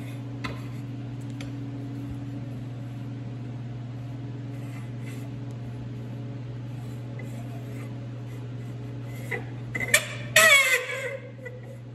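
Stamped steel ring gear clinking and ringing against the snowmobile's Team drive clutch as it is seated by hand, with a few sharp metal knocks near the end, over a steady low hum.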